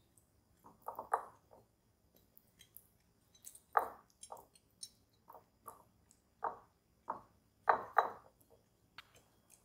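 Silicone pastry brush spreading soft butter inside a ceramic loaf pan: about a dozen short, irregular brushing strokes, the loudest about a second in, near four seconds and around eight seconds.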